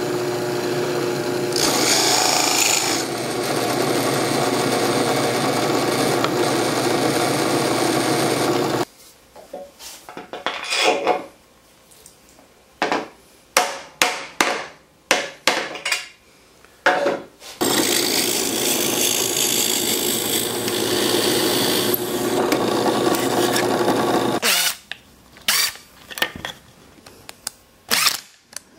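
Benchtop drill press running steadily as a Forstner bit bores a hole in plywood, stopping about nine seconds in. Then a series of separate knocks and taps, a second steady machine run of about seven seconds, and short bursts of a cordless drill/driver driving a screw near the end.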